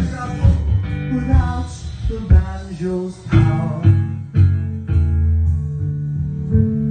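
Music of a song with guitar. A changing melody line fills the first three seconds, then it settles into held guitar chords.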